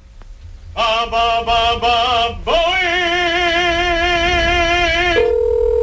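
A voice singing with heavy vibrato: a short phrase, then one long held note. Near the end it gives way to a flat, steady telephone ringing tone on the line.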